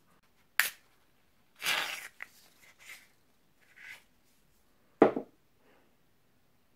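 Aerosol shower-foam can sprayed onto a paper tissue: a sharp click, then a short hiss of foam coming out about two seconds in, followed by light rustling of the tissue. A loud thump about five seconds in is the loudest sound.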